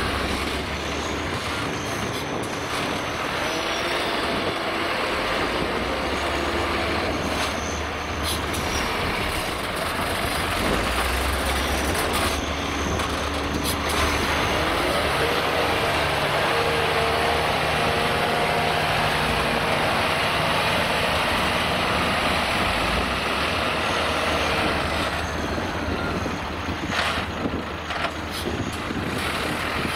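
Loaded Scania P440 6x6 dump truck, its 13-litre straight-six diesel pulling hard through mud, the engine note rising and falling as it works. A few short sharp knocks sound around the middle and near the end.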